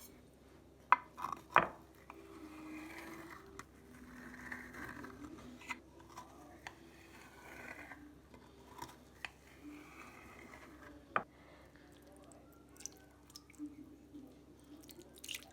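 Household handling sounds: a few sharp clinks and knocks, the loudest pair about a second in and another near the middle, with soft scraping and swishing in between over a faint low hum.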